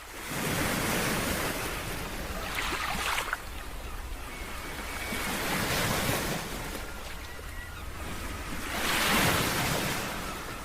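Ocean waves breaking on a beach, the surf swelling and easing in slow surges, loudest a little after nine seconds in, over a steady low rumble of wind.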